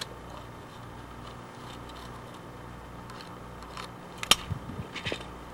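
Pencil scratching as it draws a line on a log's sawn face along a tape measure blade. About four seconds in comes a sharp click, then a few light knocks.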